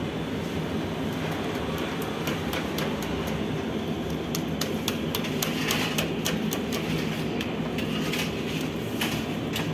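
Steady mechanical rumble of bakery equipment, with quick light slaps and taps as hands pat and dimple flatbread dough on a wooden peel, growing busier from about two seconds in.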